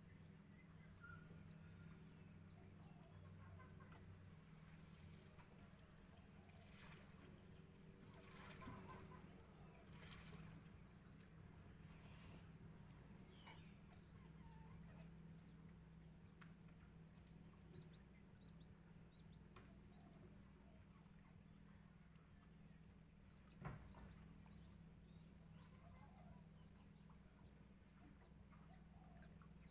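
Faint chickens clucking now and then over a steady low hum, with a single sharp knock about 24 seconds in.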